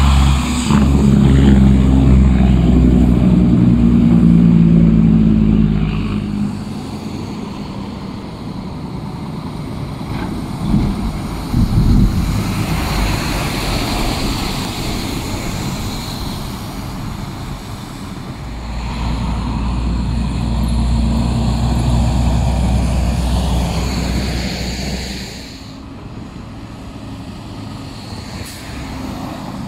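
Diesel semi-tractors pulling dump trailers of snow drive past one after another, with engine drone and tyre noise on slushy pavement. The engine sound is loudest in the first few seconds, peaks briefly near the middle as a truck goes by, and swells again in the later part before dropping off.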